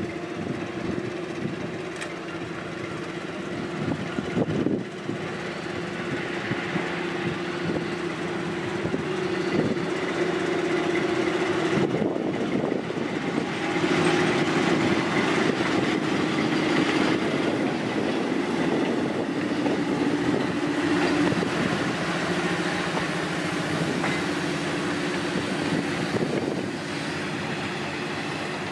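SM42 diesel-electric shunting locomotive running under load as it hauls a train of wagons past, its diesel engine droning steadily. The wagon wheels clatter on the rails, and the sound grows louder in the middle as the locomotive passes close.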